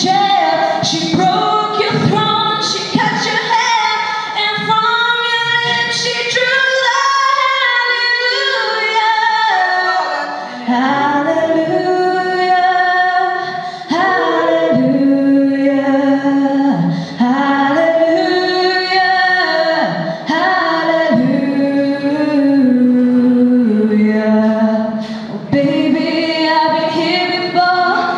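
A young woman singing solo into a handheld microphone. She holds long notes that step up and down in pitch from about a third of the way through.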